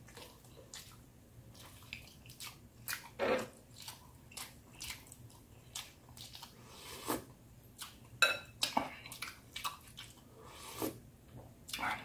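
A person chewing and sipping broth from a metal spoon, close to the microphone: an irregular string of short, soft wet mouth clicks and smacks, a few of them louder.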